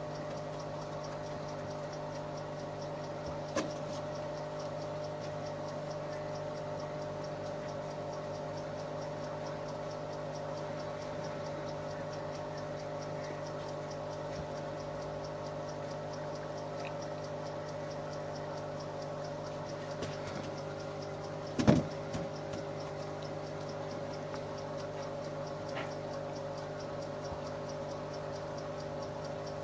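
A steady low mechanical hum made of several held tones, with faint regular ticking over it. A light click comes about four seconds in, and a sharp knock, the loudest sound, about twenty-two seconds in.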